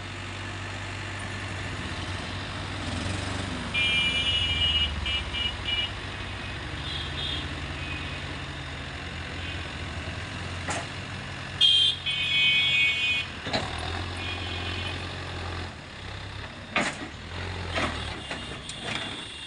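Diesel engines of a tractor and excavator running steadily. Short spells of high-pitched beeping come about 4 seconds in and again around 12 seconds, and a few sharp knocks fall in the second half.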